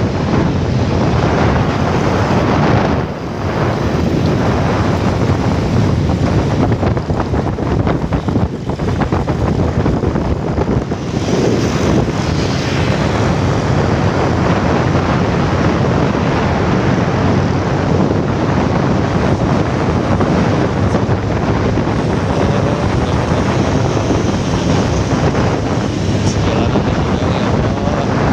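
Wind rushing loudly and steadily over the microphone of a camera on a moving motorcycle, with road and vehicle noise underneath; it eases briefly a few times, about three, eight and eleven seconds in.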